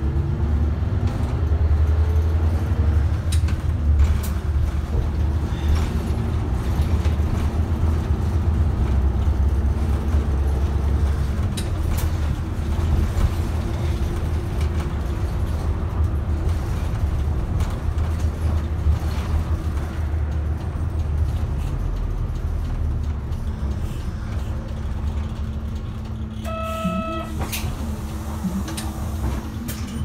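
Iwate Kenkotsu city route bus's diesel engine and drivetrain running on the road, heard from inside the cabin at the front: a deep, steady rumble, heaviest over the first two-thirds and easing a little later. About four seconds before the end a short electronic tone sounds once.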